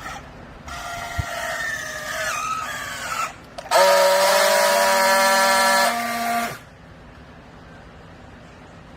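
Hydraulic baler running under load: a whine that wavers in pitch for a couple of seconds, then a louder, steady whine for nearly three seconds that cuts off suddenly.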